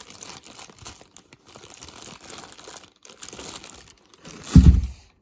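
Packaging being handled and crinkled around a water pump, in scattered faint crackles, with one heavy low thump about four and a half seconds in.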